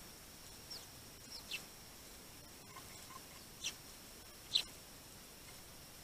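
Eurasian tree sparrows at a feeder giving short, single chirps that slide down in pitch, about five of them, the loudest a little after the middle.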